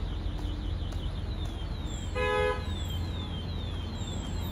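A vehicle horn gives one short toot, about half a second long, about two seconds in, over a steady low rumble.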